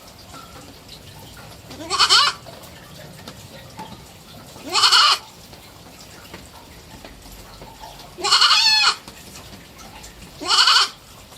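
Three-month-old kid goat bleating four times, a few seconds apart. Each bleat lasts about half a second and opens with a rising pitch; the third is a little longer and wavers.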